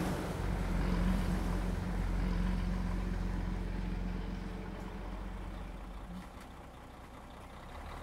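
A car's engine and tyre noise growing fainter as the car pulls away, over a low rumble of traffic.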